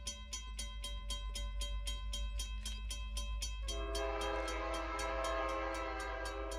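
Doubleheaded steam locomotives working hard: fast, even exhaust chuffs, about five a second, over a deep rumble. About three and a half seconds in, a steam whistle starts sounding a long chime chord.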